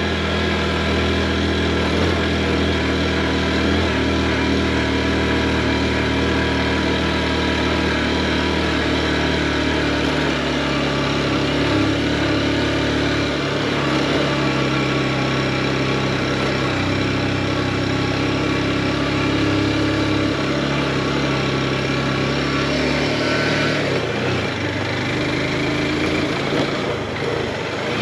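Motorcycle engine running steadily, its engine speed shifting a few times.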